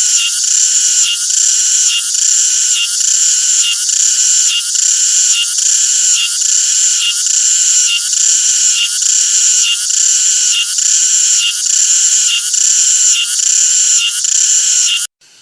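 Cicada singing: a loud, shrill, rhythmic call pulsing about twice a second. It cuts off abruptly just before the end.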